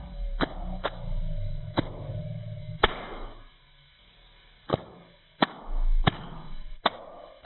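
Stomach rumbling and gurgling (bowel sounds), broken by sharp clicks at irregular intervals, with a quieter stretch midway.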